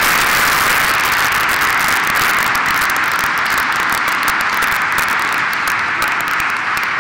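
A church congregation applauding, a steady dense clapping.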